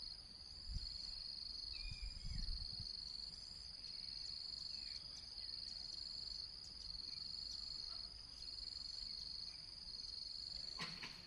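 Insects trilling in a high, thin, steady tone with short breaks, with a few soft low thumps in the first few seconds.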